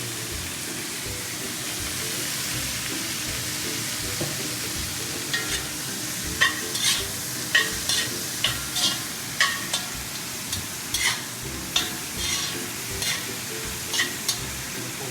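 Cabbage stir-fry sizzling in a hot pan just after soy sauce goes in. From about five seconds in, a spatula scrapes and clacks against the pan as the food is tossed.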